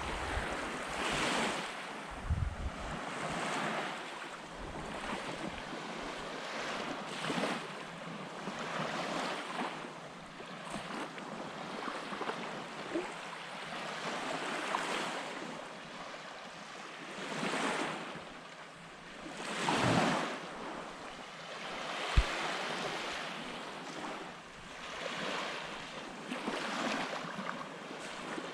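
Small waves breaking and washing up on a sandy beach, the surf swelling and fading every few seconds, with some wind buffeting the microphone. A single sharp click about three-quarters of the way through.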